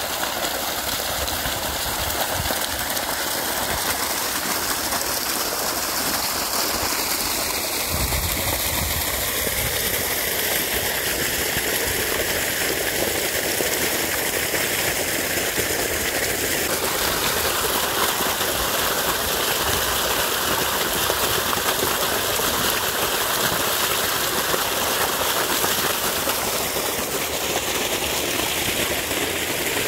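Water gushing steadily from an irrigation pump outlet and rushing along a dirt channel.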